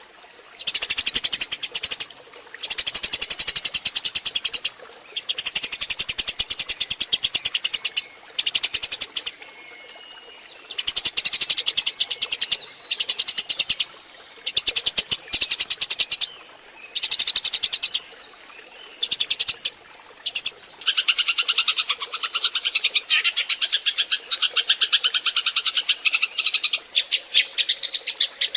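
Eurasian tree sparrows chattering: rapid, dense chirping in bursts of one to three seconds with short pauses, turning about two-thirds through into a continuous, slightly lower chatter. A sparrow lure recording, played to draw wild sparrows to gather.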